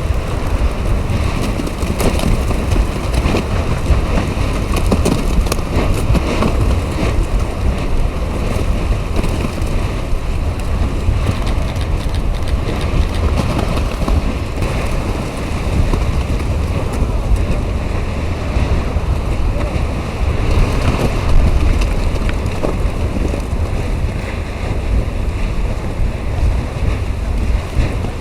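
Strong wind buffeting an outdoor microphone: a steady, loud, low rumble with scattered crackles.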